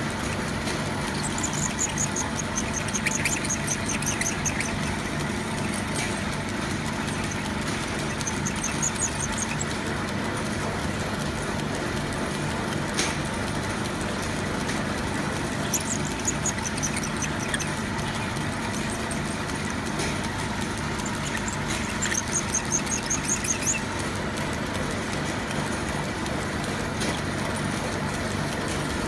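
Metal-cutting lathe running with a steady motor hum, broken four times by bursts of rapid, high-pitched squeaking from the tool working the metal.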